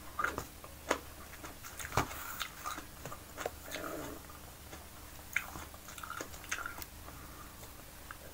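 Close-miked eating sounds: a ripe banana being peeled by hand, with scattered small clicks, smacks and soft tearing of the peel, and a bite into the banana near the end.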